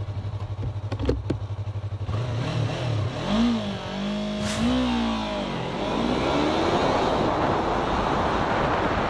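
Yamaha YZF-R3's 321 cc parallel-twin idling with an even pulse, then revved and launched hard in a 0–100 km/h acceleration run. The engine pitch climbs, dips at the upshifts and climbs again, while rushing wind noise builds with speed.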